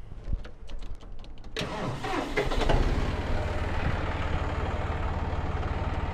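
John Deere utility tractor's diesel engine picks up sharply about a second and a half in, then runs steadily at higher revs.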